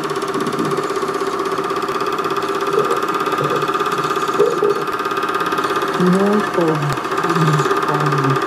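Cabin 8mm sound projector running: a steady mechanical whir with a constant hum from its motor and film drive. A voice from the film's soundtrack plays over it, clearest about six to seven seconds in.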